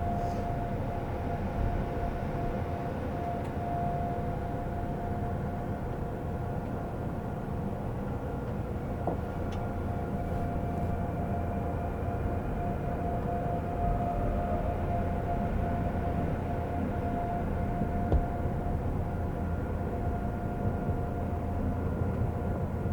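Seoul subway train running between stations, heard inside the car: a steady low rumble with a constant whine from the train's drive.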